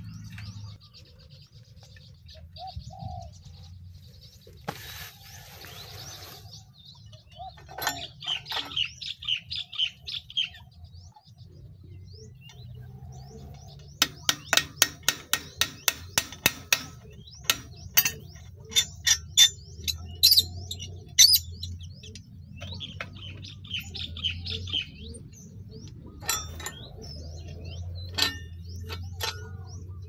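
Sharp knocks on the rusty steel mount and actuator arm of a mesh satellite dish as it is being taken apart: a quick run of about a dozen strikes near the middle, then more spaced strikes. Birds chirp in the background.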